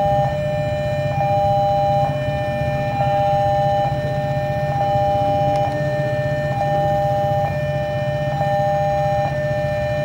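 Railway level-crossing warning alarm sounding a repeating two-tone electronic chime that changes about once a second, over the low rumble of an approaching diesel locomotive.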